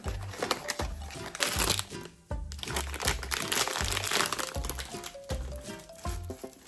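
Background music with a steady beat, over the crinkling of a blind box's packaging being torn open by hand, loudest about one and a half seconds in and again from about three to four and a half seconds.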